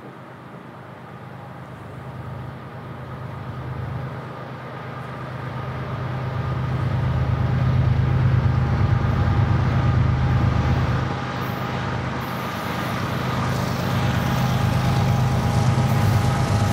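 Approaching diesel freight locomotives, led by GE ES44AC GEVO units: a low engine rumble that grows louder, dips briefly about two thirds of the way through, then builds again as the lead locomotive draws near.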